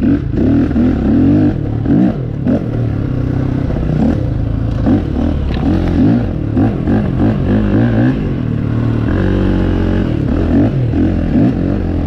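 Dirt bike engine revving up and down over and over as the throttle is worked, its pitch rising and falling every second or so, with some clatter.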